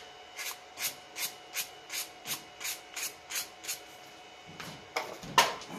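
Sandpaper scrubbed back and forth over a soldering iron's tip to clean off dirt before soldering: about ten short, even strokes, nearly three a second, stopping about four seconds in. A light knock follows near the end.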